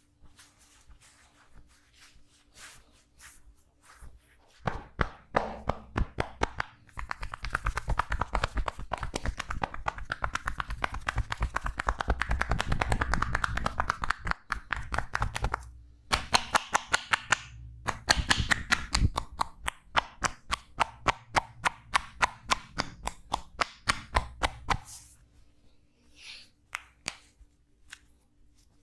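Hands striking the body in fast, rhythmic tapping and slapping strokes of a percussive massage. The strokes start a few seconds in, break off briefly midway and stop a few seconds before the end, with only scattered light taps around them.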